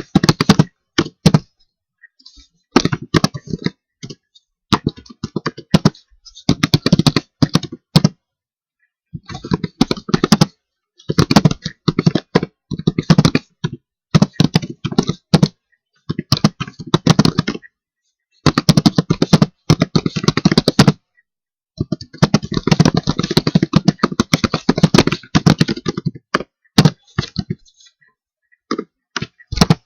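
Computer keyboard typing in bursts of rapid key clicks, with short pauses between runs and a few single clicks near the end.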